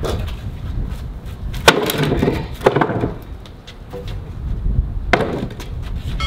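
Wooden shipping pallet swung up and dropped onto a wooden tabletop: a loud wooden clatter of knocks about two seconds in, and a smaller knock about five seconds in as it is shifted on the table.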